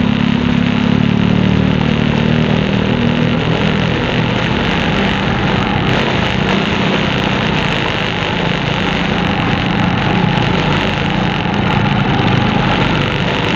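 A vehicle engine running steadily under a dense, continuous noise, with a low steady hum.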